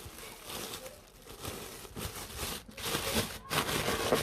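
Plastic freezer bag crinkling as it is handled: a series of crinkly rustles, busier and louder in the second half.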